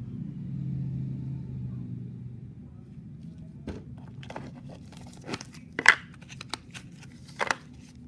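A cardboard Zippo lighter box and its packaging handled and opened with gloved hands: irregular rustling and crinkling with sharp clicks, two of them loudest, about three-quarters of the way in and near the end. A low steady hum fades out in the first couple of seconds.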